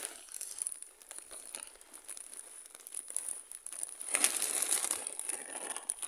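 Plastic bag of potting soil crinkling as it is tipped and shaken, with soil pouring out into a pot; a louder stretch of rustling comes about four seconds in.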